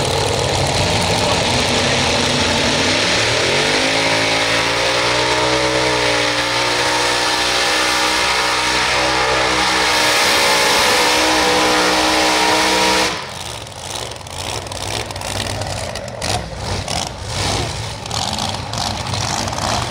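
Twin Chrysler Hemi engines with 14-71 superchargers on a modified pulling tractor running at full throttle under load, the pitch climbing about three seconds in and then holding high. The sound drops off abruptly about thirteen seconds in, leaving a lower, uneven rumble with scattered sharp cracks.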